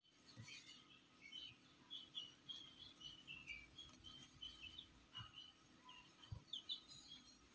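Newly hatched chicks peeping faintly in a steady run of short, high chirps, several a second, many dropping slightly in pitch. A few soft low thumps come in between.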